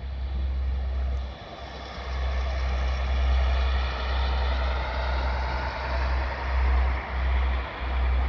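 Newag Impuls electric multiple unit running past, its wheel-and-rail noise swelling about two seconds in. Wind buffets the microphone throughout as a heavy low rumble that drops out briefly several times.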